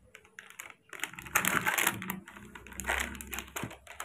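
Rapid clicking and rustling bursts, starting about a second in: handling noise as young monkeys scramble over a person's lap and a towel.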